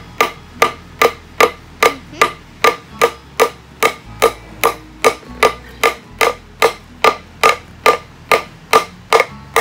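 Claw hammer driving roofing nails into a scrap 2x board in a steady run of sharp metallic blows, about two and a half a second, each with a short ring.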